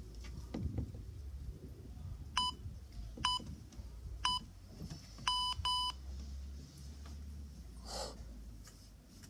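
An electronic workout timer beeping a countdown: five short beeps at one pitch, three about a second apart, then two in quick succession. Near the end comes a sharp exhale as a kettlebell is snatched overhead.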